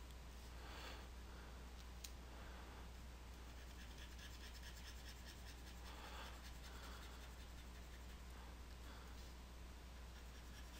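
Near silence: a steady low electrical hum, with a few faint scratchy rustles and a single click about two seconds in.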